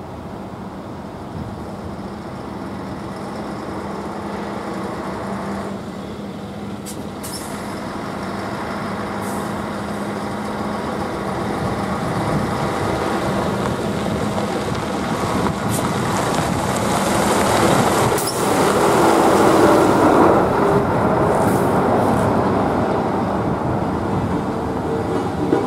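Tatra dump truck's diesel engine running as it drives slowly over the level crossing and passes close by, growing louder to a peak about 18 to 20 seconds in, with several short, sharp hisses along the way.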